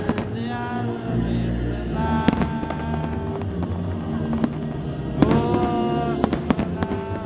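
Fireworks salute going off, with sharp bangs and pops scattered through it, the loudest just after two seconds and around five seconds in. Festive music plays loudly over it, with held notes.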